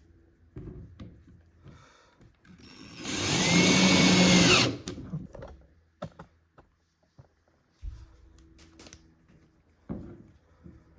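Power drill driving a screw into the bed's wooden panel in one run of about two seconds, about three seconds in. The motor speeds up, holds, then winds down. Light clicks and knocks of handling parts come before and after.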